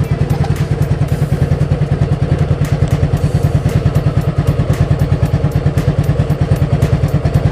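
Yamaha Fazzio scooter's single-cylinder engine idling with a fast, even pulse. It is left running so the battery does not drain while it powers an electric tyre pump from its socket.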